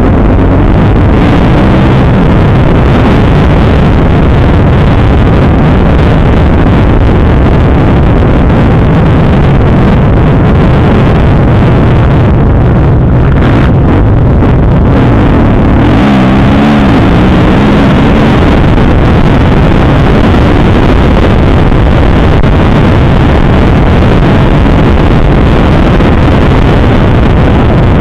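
Kawasaki KX250F four-stroke single-cylinder motocross engine running hard around the track, its pitch rising and falling with the throttle, heard from an onboard camera. The recording is loud and saturated, mixed with wind buffeting the microphone.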